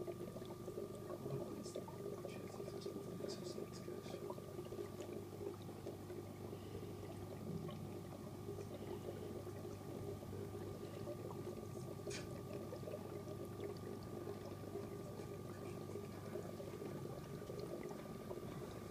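Aquarium filter running: a steady hum with trickling, bubbling water and a few faint clicks, the clearest about twelve seconds in.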